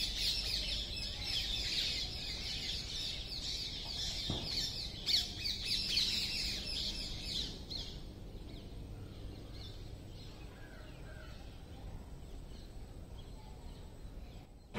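Many small birds chirping in a dense chorus that thins out and fades about halfway through, leaving a quiet outdoor ambience. Two brief knocks come around four and five seconds in.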